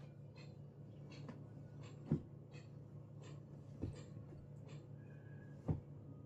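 Clothes rustling as they are handled and packed into clear plastic storage boxes, with three soft knocks, over a steady low hum.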